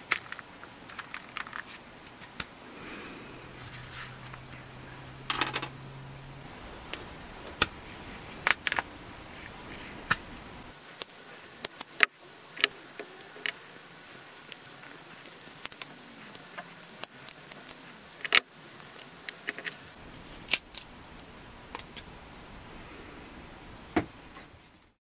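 Irregular sharp metallic clicks and clinks of needle-nose pliers and small metal parts, the ferrule rings and nails from an old billhook's wooden handle, being worked and set down on a wooden workbench.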